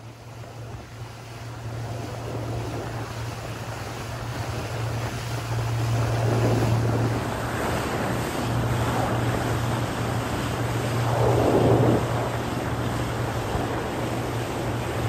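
Small motorboat under way: a steady low engine hum under the rush of water along the hull and wind on the microphone, with louder swooshes of water about six and twelve seconds in.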